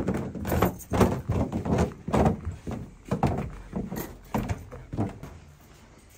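Footsteps going quickly down indoor stairs: a run of thuds about two to three a second that fade out about five seconds in.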